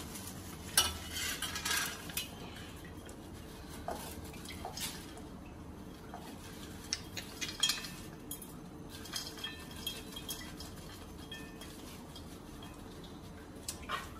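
Scattered clinks and scrapes of a perforated steel skimmer against steel plates and bowls while fried corn kernels are shifted about. The clinks come in a busy cluster in the first two seconds, again around seven to eight seconds in, and once more near the end.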